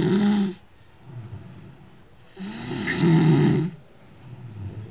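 A sleeping person snoring loudly, in a regular rhythm of about one snore every three seconds. One snore ends about half a second in, and another, lasting over a second, comes near the middle, with quieter breathing between them.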